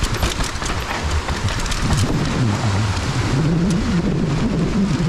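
Mountain bike riding down a dirt singletrack: a steady rush of tyre noise over dirt and roots, with many sharp rattles and clicks from the bike. A low wavering hum joins about two seconds in.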